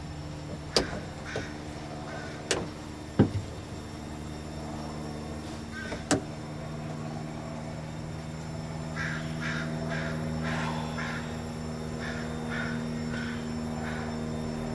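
A few sharp knocks in the first six seconds, over a steady engine drone that grows louder towards the end as a propeller aircraft approaches. In the middle a bird calls a quick series of about a dozen short notes.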